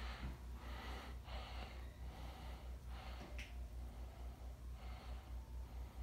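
JCPenney ceiling fan running, its spinning blades giving a faint, even, rapid low pulsing of moving air, with soft breath-like rushes of noise every second or so.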